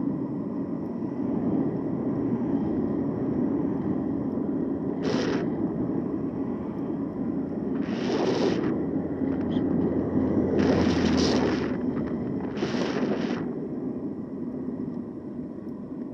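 Wind and rolling noise on the microphone of a moving e-bike, a steady rush with four short louder bursts of hiss about 5, 8, 11 and 13 seconds in.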